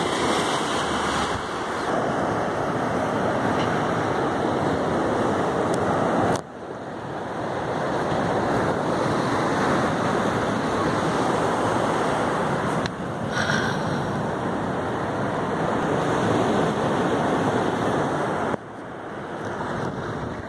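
Surf washing over a rocky shore, mixed with wind on the microphone, as a steady loud rush. The noise drops off abruptly about six seconds in and again near the end.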